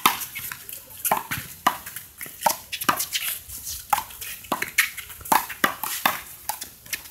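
A rally of one-wall handball: a small rubber handball slapped by gloved hands, striking the wall and bouncing on the court. It makes a run of sharp smacks at irregular intervals, several a second, with the loudest right at the start.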